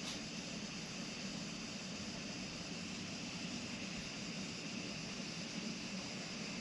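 Steady, even background hiss with a low hum underneath and no distinct events.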